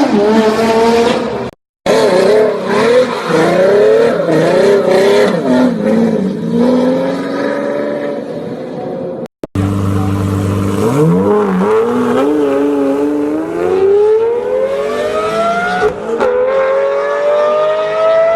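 Lamborghini Murciélago V12 engine, revved up and down in short blips, then accelerating hard with its pitch climbing steadily. About sixteen seconds in the pitch dips briefly at a gear change before climbing again. The sound cuts out abruptly twice.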